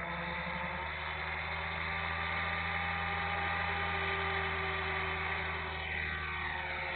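Blade 500 electric RC helicopter's motor and rotor whining steadily at speed, then shifting in pitch about six seconds in as it lifts off.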